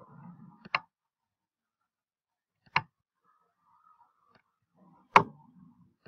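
Three sharp computer mouse clicks about two seconds apart, the last one loudest.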